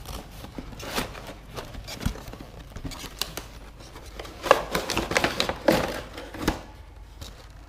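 A cardboard toy box being handled and opened by hand: scraping, rustling and knocking of cardboard and plastic packaging, with a louder flurry of rustles and knocks a little past the middle.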